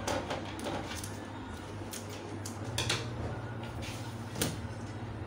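Light knocks, clicks and rustles as paper pattern pieces and a pair of scissors are handled and set down on a table, the sharpest knock near the end, over a steady low hum.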